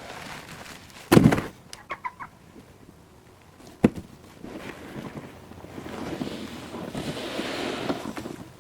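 Handling noises in a chicken coop: a heavy thump about a second in, a few short high notes, a sharp knock, then several seconds of rustling and scraping that grows louder toward the end.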